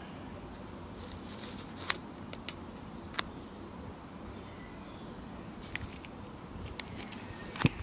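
Steady faint background hiss with a few scattered short clicks as a plastic pouch of fuel gel is squeezed into a metal spirit-burner tray.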